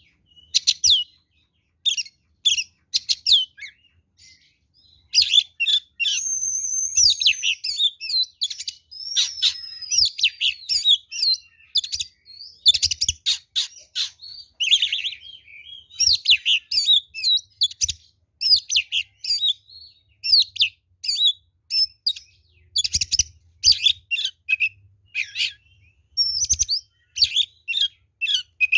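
Oriental magpie-robin (kacer) singing loudly in full, aggressive territorial song: a long, varied run of rapid chirps and trills, with a few longer sweeping whistles, one of them falling, and only brief pauses.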